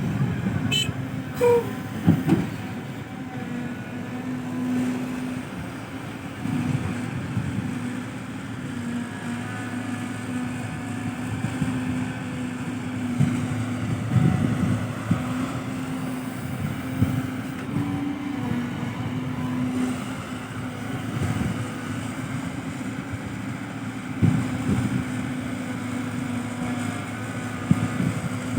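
Heavy diesel machinery running steadily, with a low drone and occasional heavy thuds, typical of an excavator loading soil into a dump truck.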